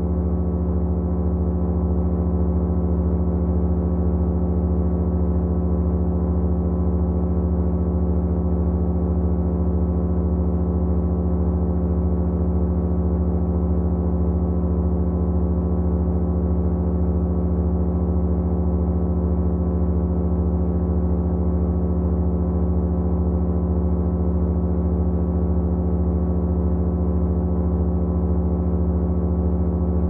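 Electronically generated sound of several motors running together: a steady, unchanging low hum of layered tones, with one higher tone fluttering rapidly.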